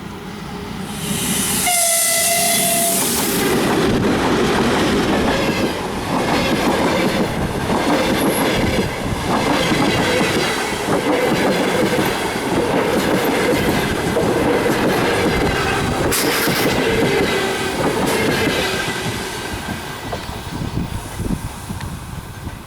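A 2ES4K electric locomotive with a passenger train passes close by. It gives a brief horn blast about two seconds in. The long train of carriages then rumbles and clatters over the rail joints, fading near the end.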